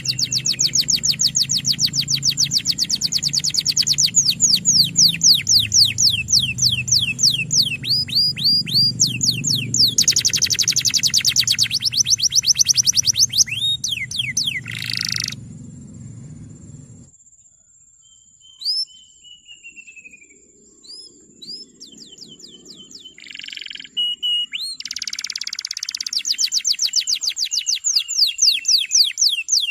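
Male domestic canary singing long rolling trills of rapid, evenly repeated high notes. About halfway through, the song breaks off into a few scattered chirps and a low background hum stops. The long trills resume near the end.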